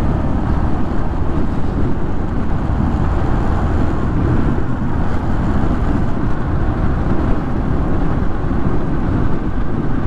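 Motorcycle riding at a steady cruising speed: a constant low rumble of wind buffeting the action camera's microphone over the engine and tyre noise.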